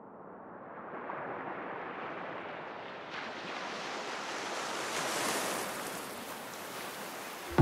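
A wash of surf-like noise with no tones in it, growing steadily brighter as it rises, like a slow filter sweep. It swells a little in loudness towards the middle.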